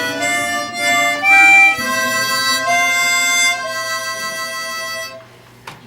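Harmonica playing a slow tune in chords. The last note is held for over a second and stops about five seconds in.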